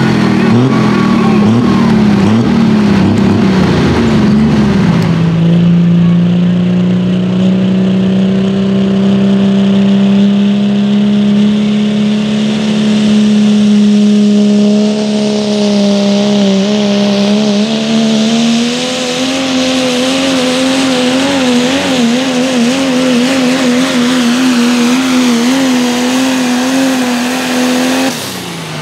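Loud turbocharged diesel pickup trucks at full throttle pulling a weight-transfer sled. After about five seconds one engine takes over, held at a steady high pitch; about two-thirds through it steps up a little and wavers until it drops off near the end.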